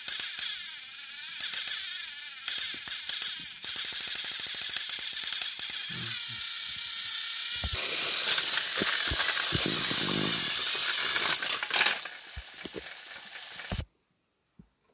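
Motorised Thomas & Friends toy trains running: a steady whir with fast clicking of small motors and plastic gears as two coupled engines work against each other, louder for a few seconds in the middle. It cuts off abruptly near the end.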